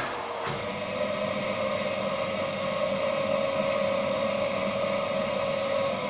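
Kärcher T 7/1 dry vacuum cleaner running steadily with a whine, its pitch stepping up slightly about a second in. A couple of knocks from the hose being handled near the start.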